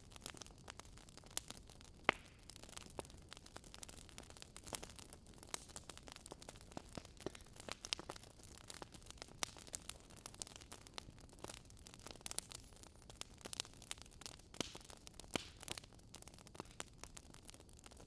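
Burning firewood crackling: irregular sharp snaps and pops, a few a second, over a faint steady hiss.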